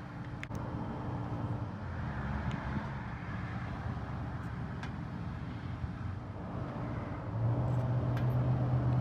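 A vehicle engine running with a steady low hum, which grows louder about seven seconds in, with a few light clicks.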